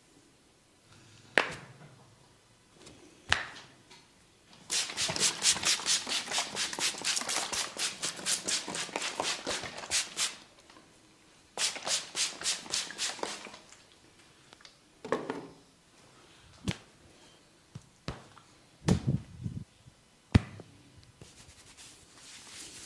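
A barber's fingers working briskly through hair on the scalp during a head massage. A couple of single sharp clicks lead into a long run of quick, crisp scratching strokes, about five a second, then a second shorter run. A few duller knocks and a sharp snap follow near the end.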